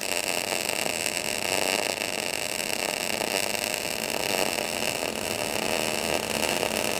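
MIG (GMAW) welding arc burning steadily with a continuous hiss while laying a downhill cap pass on a vertical 3G groove weld.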